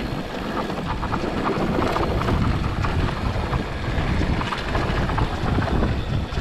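Wind buffeting the microphone of a mountain biker's camera while riding a dirt trail, with mountain bike tyres rolling on dirt and many scattered clicks and rattles from the bike.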